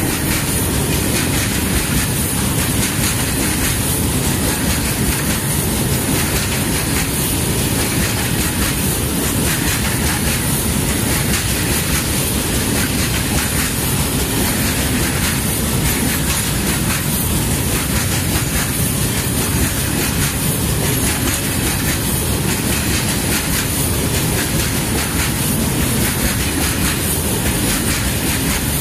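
Freight train of open-top coal wagons rolling past: a steady rumble of steel wheels on rail, with a regular clickety-clack as the wheelsets cross rail joints.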